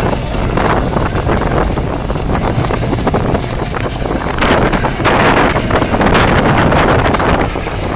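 Wind buffeting the microphone in a steady low rumble, with louder gusts about halfway through.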